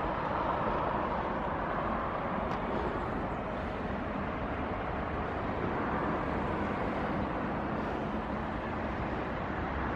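Steady outdoor hum of distant road traffic.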